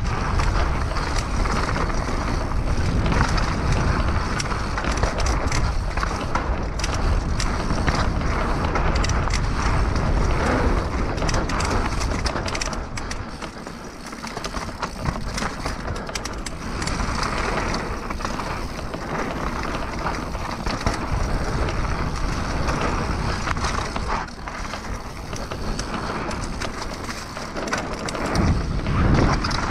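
Mountain bike descending a dirt trail: tyres rolling and crunching over dirt and the bike rattling over bumps, in a steady rush of noise that eases a little about halfway through.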